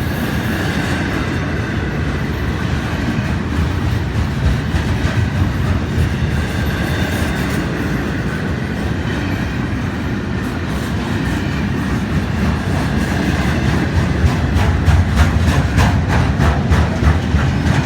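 Long freight train of empty intermodal well cars rolling past, a steady rumble of steel wheels on rail. In the last few seconds the wheels click rapidly over the rail joints, louder and more often.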